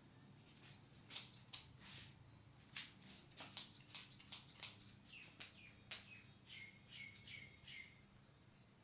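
Faint, short scratchy rustles of hands rubbing and working through hair during a head massage, the loudest in a cluster a few seconds in. In the second half a small bird chirps several times in quick succession in the background.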